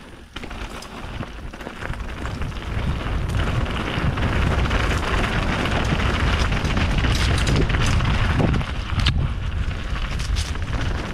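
Enduro mountain bike riding a wet, rocky trail: tyres rolling over rock and dirt with knocks and rattles from the bike, under heavy wind rumble on the action camera's microphone. The noise builds over the first few seconds as the bike gathers speed, then stays loud.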